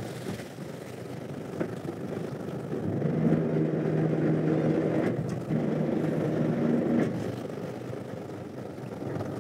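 Fishing boat's engine running under wind and sea noise. A louder, steady motor drone comes in about three seconds in and drops away about four seconds later.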